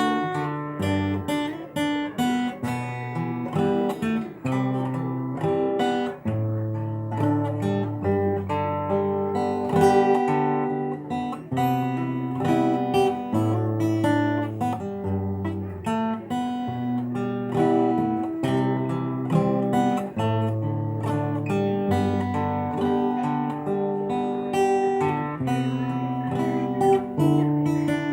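Solo acoustic guitar played fingerstyle: low bass notes held under a plucked melody line, a pop song arranged for one guitar.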